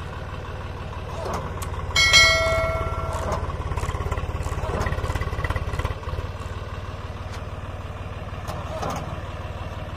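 Diesel tractor engines running under load as a Mahindra Arjun 555 tows a log-laden Swaraj 744 FE out of mud. The engine pulse is heavier for a few seconds and then eases. About two seconds in, a bell-like ding rings for about a second and a half.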